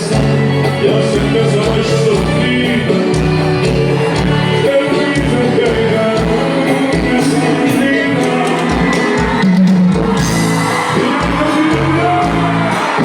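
Forró music with singing over a steady beat.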